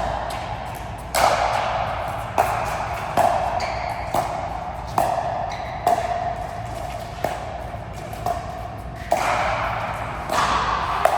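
A rally of racket strikes, about one a second, each a sharp ping that rings on in a large hall.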